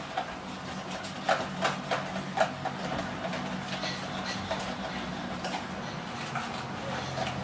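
Hand wire whisk beating a runny kefir batter in a plastic bowl: a quick, uneven run of clicks and taps as the wires strike the bowl, clearest in the first three seconds and softer after. A steady low hum runs underneath.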